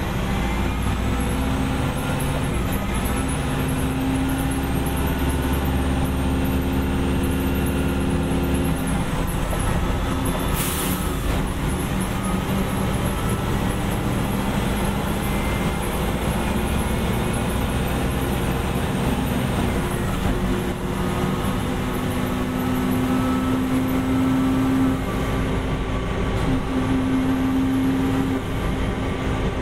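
Detroit Diesel Series 50 diesel engine of a 1989 Gillig Phantom transit bus running as the bus drives. Its engine note shifts in pitch as speed changes, with a faint high whine rising and falling. A short hiss comes about ten seconds in.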